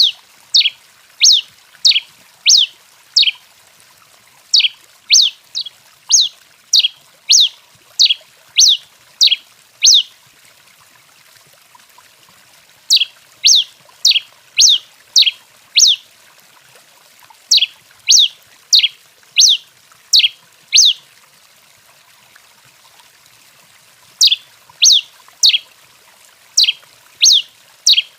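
Tico-tico-rei (pileated finch) giving sharp, high down-slurred call notes about twice a second, in runs of several seconds broken by short pauses, over a faint steady hiss.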